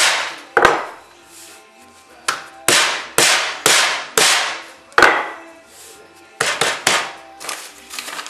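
Rolling pin whacking a butter-filled parcel of croissant dough on the counter to flatten the butter inside: a run of sharp blows, about two a second, in three groups, the last a quicker flurry.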